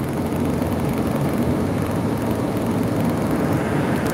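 Steady road and engine noise inside a minivan cruising at highway speed: a low, even rumble with nothing standing out.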